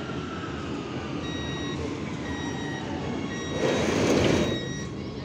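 A metro train's door warning beeper, here a Siemens Inspiro's, sounding a series of high beeps, with a loud rushing noise partway through, about three and a half seconds in.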